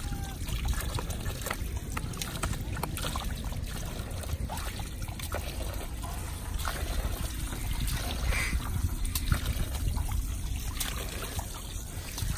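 Water from an outdoor standpipe tap trickling and splashing over a cupped hand and a drinking Alaskan Malamute's muzzle onto wet ground.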